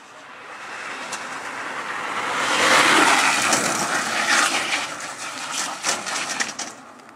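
Engineless downhill gravity kart rolling past on asphalt: a rushing rumble from its wheels that builds to a peak about three seconds in, then fades away, with clattering from the chassis as it goes by.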